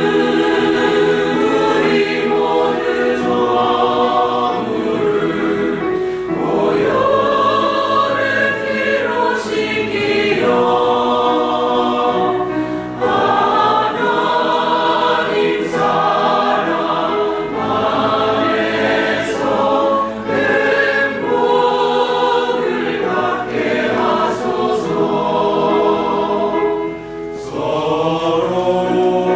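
Church choir singing a hymn in long held phrases, with brief breaks between phrases.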